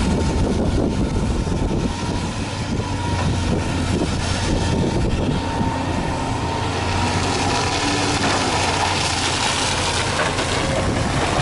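Cat 330D excavator working: its diesel engine runs steadily under load with a deep hum as the boom swings. A hiss builds in the second half as the bucket is brought over the sand pile to dump.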